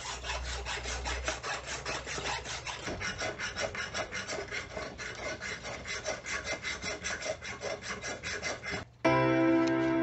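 Hand file rasping back and forth over the steel head of an old axe clamped in a bench vise, in quick, even strokes that remove rust. The filing stops abruptly about nine seconds in and background music takes over.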